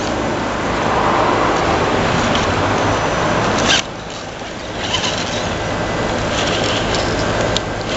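Radio-controlled rock crawler's electric motor and gear drivetrain running under load as it climbs a rock. The sound drops off suddenly about four seconds in and picks up again a second later, with a couple of sharp knocks from the rig on the rock.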